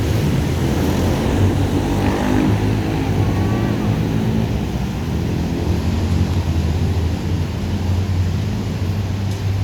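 An engine running steadily, a low even drone, with a faint short sliding tone about three seconds in.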